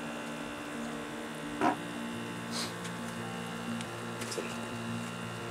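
A motor running with a steady hum of several held tones, whose pitch drops slightly about two seconds in. A few faint short clicks sound over it.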